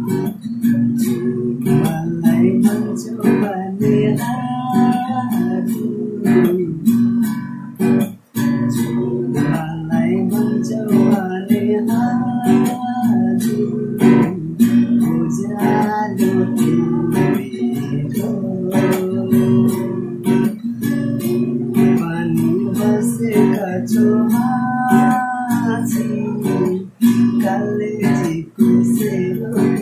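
Acoustic guitar strummed in a steady rhythm while a man sings a Nepali song over it, with a few brief stops in the strumming.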